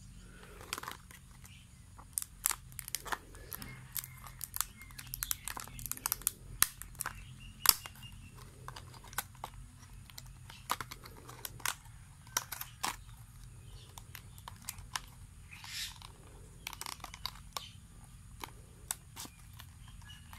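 Clear plastic lure packaging being handled and opened: irregular crinkling with sharp plastic clicks and snaps, the loudest about seven and a half seconds in.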